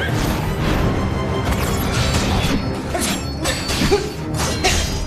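Animated battle soundtrack: dramatic background music with several sudden whooshes and metallic crashes as two robot creatures clash.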